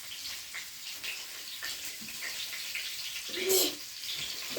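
Fish fillets frying in oil in a pan: a steady faint sizzle with scattered small crackles. A short vocal sound about three and a half seconds in.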